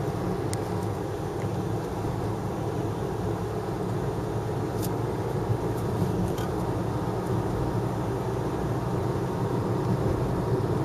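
Steady road and engine noise of a moving car, heard from inside, with a few faint ticks.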